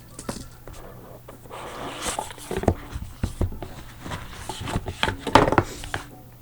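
A trading card box being opened by hand: cardboard and wrapper rustling, with scattered clicks and knocks. The handling is busiest about two seconds in and again near the end.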